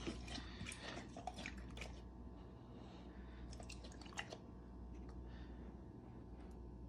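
A dog lapping water from a plastic bowl. The wet laps are faint and stop about four and a half seconds in.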